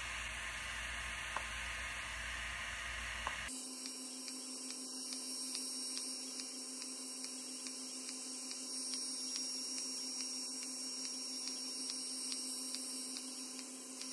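Cooling fan of a JOVS DPL photo-facial (pulsed-light) handheld device humming steadily. From about three and a half seconds in, faint evenly spaced ticks sound over the hum as the light pulses continuously.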